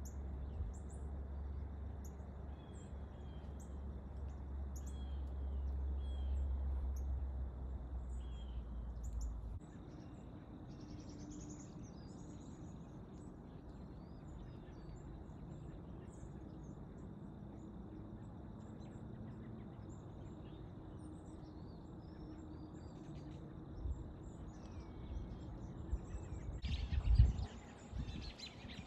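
Small birds chirping and calling in brushy woodland, with a low rumble under them for the first third that stops suddenly. Near the end there are a few loud knocks close to the microphone.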